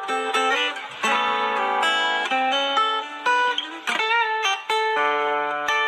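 Acoustic guitar playing a melody of sustained single notes, with string bends and vibrato making the pitch waver around the middle and glide near the end.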